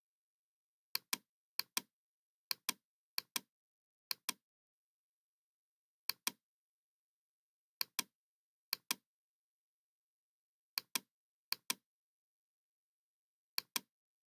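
Computer mouse button clicking about eleven times at irregular intervals, each a quick pair of sharp clicks, with dead silence between them.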